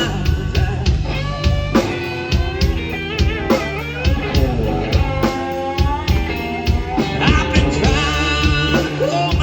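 A blues-rock band song: a sung vocal line over electric guitar, bass and a steady drum beat.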